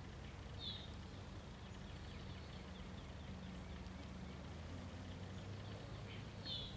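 Faint outdoor ambience: a steady low rumble, with a small bird chirping briefly twice, about half a second in and near the end, amid faint twittering.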